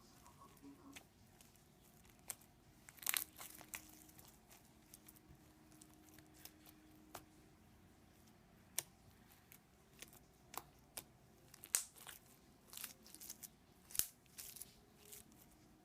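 Slime with small modelling-clay balls mixed in, being squeezed and worked by hand: irregular soft crackles and pops, a cluster about three seconds in and more through the second half.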